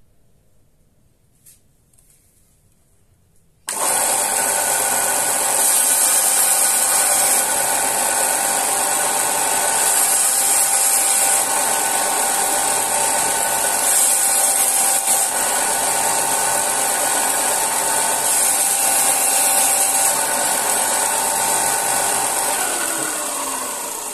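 Ryobi 4 x 36 inch belt sander with a 120-grit belt running loud and steady, its hiss brightening every few seconds as a steel knife edge is ground dry against the belt. It comes in abruptly about four seconds in, and near the end it fades with a falling pitch as the motor winds down.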